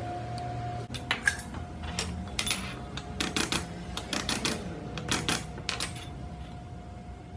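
Metal parts clinking and knocking together in a quick, irregular run of sharp hits, some with a brief metallic ring, over a steady workshop hum.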